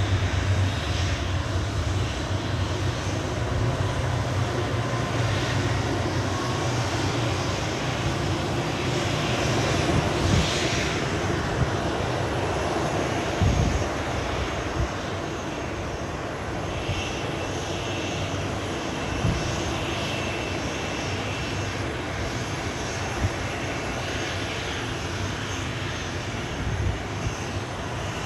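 Boeing 737 jet engines running with a steady rumble, easing slightly about halfway through, with an occasional low thump.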